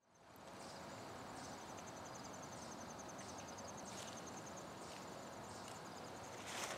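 Crickets trilling steadily in a fast, high, pulsed chirp over a soft hiss, fading in at the start. A brief rustling noise comes near the end.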